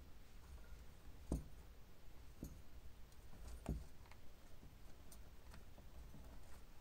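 Faint scattered clicks and taps in a quiet room over a low steady hum, with two louder knocks about one and a half and four seconds in.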